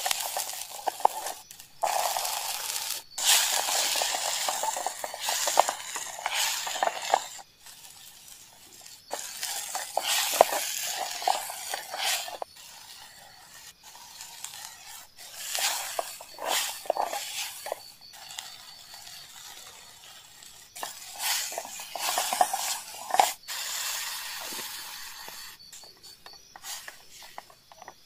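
Chopped onions, peas and tomatoes sizzling in a small metal camping pot on a canister gas stove, stirred and scraped against the pot with a wooden spatula. The stirring comes in several bouts, with quieter sizzling between them.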